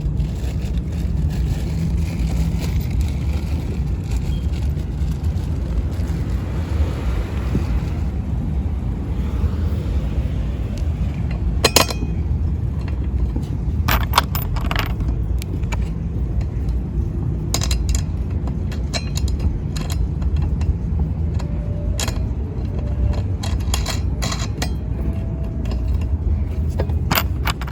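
Scattered metallic clicks and knocks of bolts and seat-mount hardware being handled and fitted, over a steady low rumble. The clicks come singly, with more of them in the second half.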